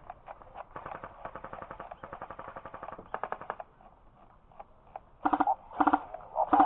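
Airsoft guns firing on full auto: a fast stream of quieter shots for about three seconds, then three short, louder bursts near the end.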